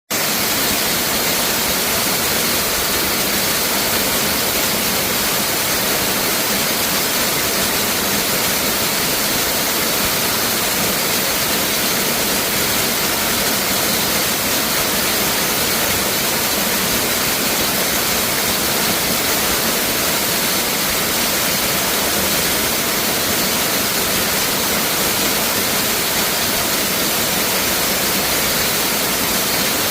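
Waterfall pouring, a steady, loud, unbroken rush of falling water heard from close to its base.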